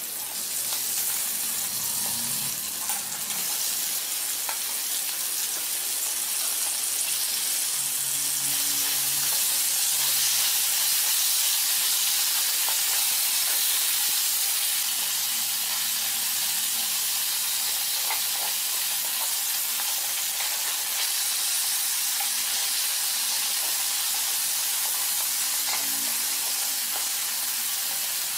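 Cornstarch-dusted crab pieces sizzling steadily as they fry over low heat in a little oil in a wok. Occasional light taps and scrapes of tongs and a spatula turning the pieces.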